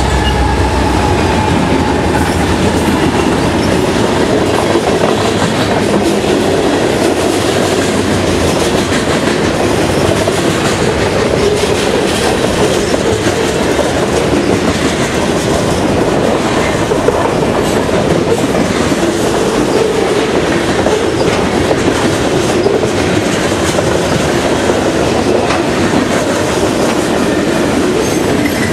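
Long Norfolk Southern freight train passing close by. The diesel locomotives' low rumble drops away in the first second or so, then comes a steady clickety-clack of freight car wheels over the rail joints and the noise of the cars rolling past.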